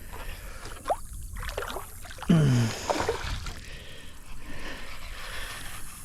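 An angler's gasps and breathing while fighting a hooked bass from a kayak, with a short grunt falling in pitch a little past two seconds in, over faint water sounds.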